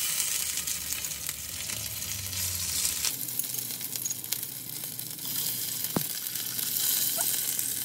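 Steamed pork dumplings (momo/gyoza) sizzling as they pan-fry in a little hot oil in a small square non-stick pan, with a few light clicks as chopsticks set them down against the pan.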